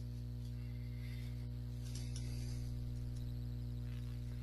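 Steady low electrical mains hum, a buzz with a stack of even overtones, with a few faint clicks.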